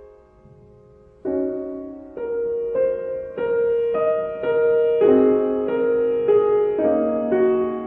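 Slow, gentle piano music: single notes and soft chords, each struck and left to fade, picking up after a short lull about a second in.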